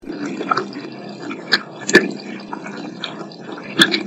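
Water running from a house tap, heard as a choppy hiss with sharp clicks, the loudest about two seconds in and near the end. The uploader hears spirit words in it.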